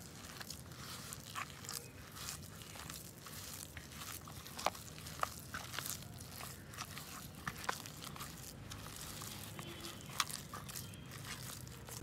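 A hand squeezing and kneading mashed potato with flour in a plastic bowl: soft squishing with irregular small crackles and a few sharper clicks.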